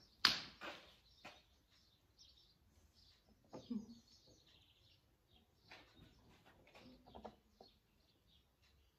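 Faint, scattered chirps of small birds, with a single sharp knock just after the start.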